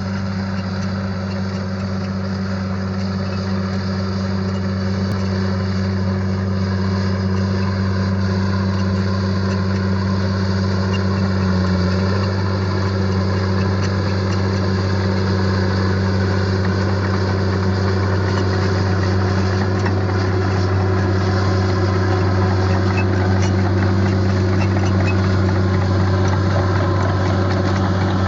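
Engine of a heavy construction machine running steadily with a deep, even hum, growing slightly louder over the first several seconds.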